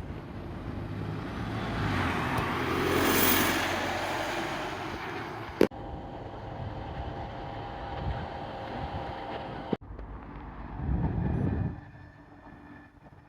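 Road traffic: a vehicle passes, loudest about three seconds in, then engines run steadily, with a louder low rumble briefly around eleven seconds and a sharp click before the middle.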